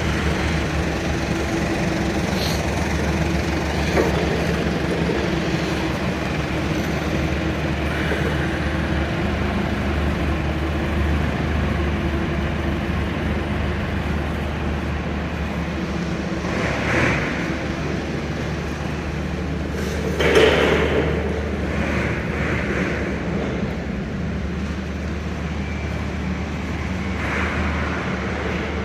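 Steady low mechanical hum of workshop machinery running, with a few brief faint sounds over it about two-thirds of the way through.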